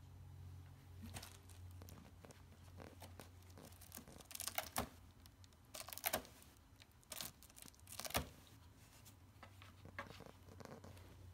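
A kitten shifting about inside a cardboard box, scraping and rustling the cardboard in short, irregular bursts. The bursts come thickest in the middle.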